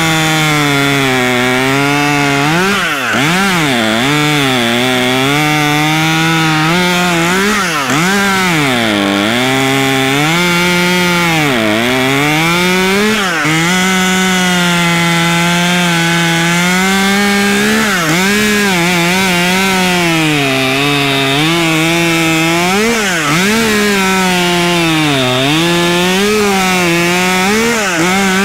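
Husqvarna T540 XP Mark III 39cc two-stroke top-handle chainsaw running at high speed while cutting wood. Its pitch drops again and again as the chain bites into the log, then climbs back.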